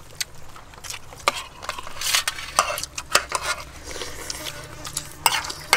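Metal spoons scraping and clicking against a stainless steel tray as food is scooped up, in many short, irregular strokes.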